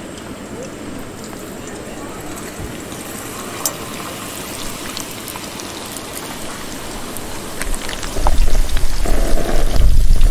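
Chicken wings deep-frying in a pot of oil, a steady sizzle with fine crackles, during the first, low-temperature fry of a double fry. From about eight seconds in, a much louder low rumble comes in over it.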